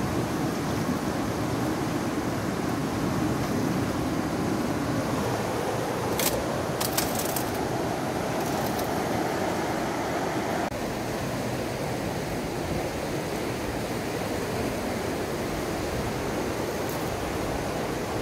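Fast-flowing mountain river rushing steadily, with a few light clicks about a third of the way in; the rush drops slightly a little past halfway.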